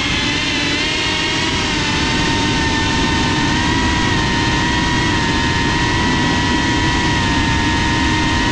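FPV quadcopter's brushless motors and propellers whining in flight, recorded by the GoPro mounted on the drone, with a rushing hiss of prop wash. The whine holds a nearly steady pitch throughout.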